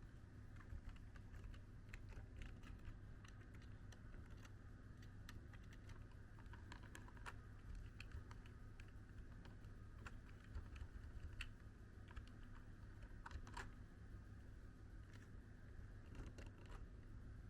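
Faint, irregular light clicks, coming in quick clusters, over a steady low hum.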